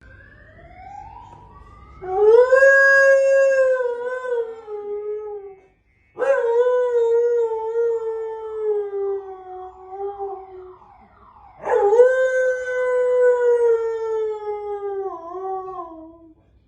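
Dog howling in answer to a car alarm: three long howls, each slipping slowly down in pitch and trailing off, with short breaks between them.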